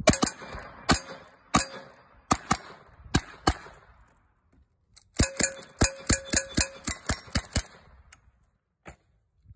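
Timed string of gunfire: a handgun fired about seven times at a steady pace. After a pause of about a second and a half comes a faster run of about ten rifle shots, a ringing note trailing several of them, and a single metallic click near the end.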